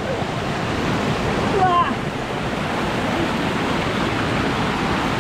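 Waterfall rushing steadily, a dense unbroken wash of falling water, with a faint voice briefly heard under it a little under two seconds in.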